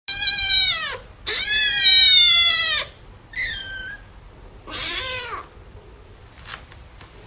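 A small animal crying out: four high, drawn-out cries that fall in pitch, the second one the longest, with a faint short one later.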